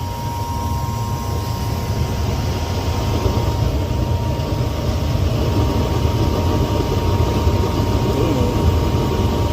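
Gas furnace firing: a steady low rumble of burner flames and draft, with a thin steady whine, growing louder over the first few seconds. The burners sputter, which the technician reads as poor draft inside the heat exchanger.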